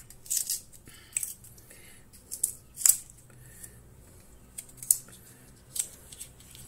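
About six sharp snips and clicks, spread irregularly, the loudest about three seconds in: a new CR2032 coin-cell battery being cut out of its plastic blister pack with scissors.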